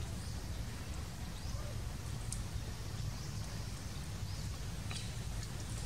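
Outdoor forest ambience: a steady low rumble with a few faint, short high-pitched chirps.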